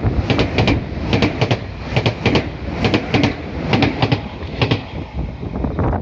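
Meitetsu 1000 series electric train passing close by at speed: a steady rumble, with wheels clacking in pairs over the rail joints about once a second. It grows thinner near the end as the train draws away.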